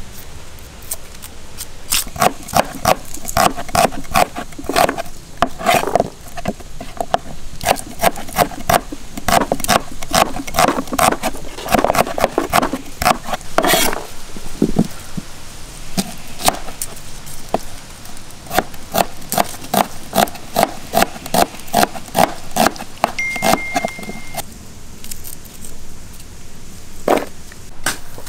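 Cleaver chopping red onions on a wooden cutting board: runs of sharp chops, about two a second in places, with short pauses between runs.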